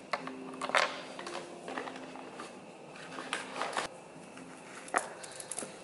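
Tissue paper rustling and crinkling as it is pulled out of a small cardboard gift box, with louder crinkles about a second in and again after three seconds, and a short tap near the end.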